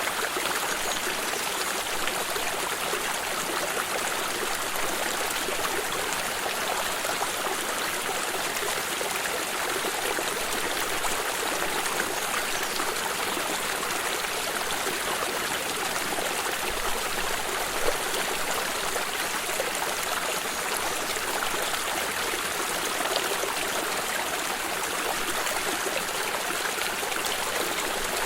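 Water stream flowing steadily over stones, an even rushing and trickling with no pauses.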